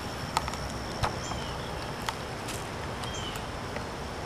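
Outdoor garden background: a steady hiss with a thin, high insect whine throughout, a few light clicks and two short, faint chirps.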